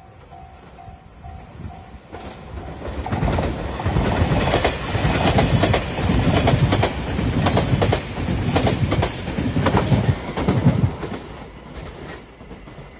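A level-crossing warning bell dings steadily. Then a JR Shikoku Shiokaze limited express electric train passes the crossing, building from about two seconds in, its wheels clacking rapidly over the rail joints. It fades again near the end.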